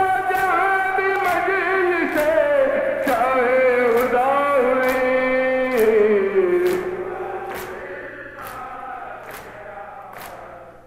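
Men's voices chanting a noha (Urdu mourning dirge) in long, drawn-out notes over rhythmic matam, open-handed chest-beating that lands as sharp slaps about once a second. The singing fades after about seven seconds while the chest-beats keep time.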